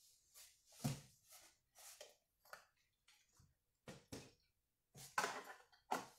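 Goods being packed into a cardboard box: a series of short knocks, rustles and scrapes as items are set down and shifted inside it. The loudest is a longer scrape about five seconds in, followed by a sharp knock just before six seconds.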